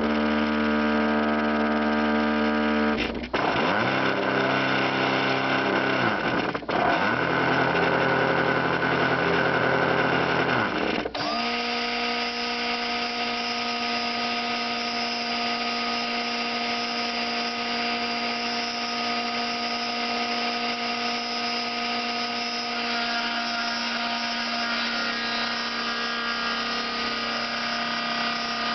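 Homemade CNC mill with stepper-motor-driven axes running a test program. It makes a mechanical whine of several steady tones whose pitch dips and glides as the motion changes about three, six and eleven seconds in, then settles into a steady whine.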